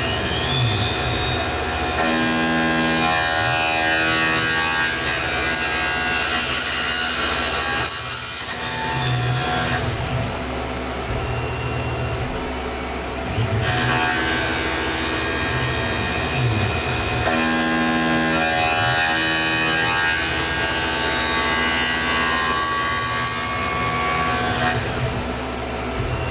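Tormach CNC milling machine cutting a metal part: the spindle whine climbs in pitch as it speeds up, then the cutter runs through a pass with shifting tones. The same cycle repeats twice, about 14 seconds apart.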